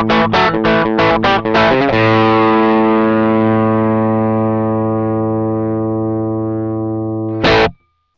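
Distorted electric guitar, a 1988 American Standard Telecaster played through the Midnight Drive overdrive pedal. Quick picked chords for about two seconds, then one chord left ringing and slowly fading, a short strum near the end, and the sound cuts off.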